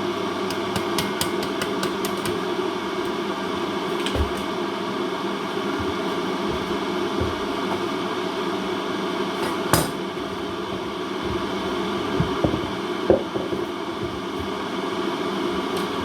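Steady kitchen hum, with a few light clicks and knocks of cookware on the stove: a sharp clink about ten seconds in and a couple of knocks shortly after.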